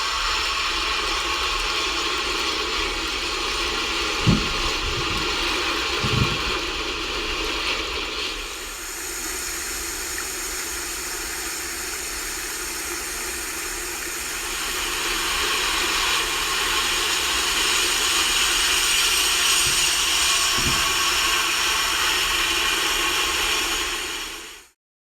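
N scale model train running on its track: a steady motor hum with track rattle and hiss, a few soft knocks near the start and again later, and the sound shifting twice before cutting off abruptly.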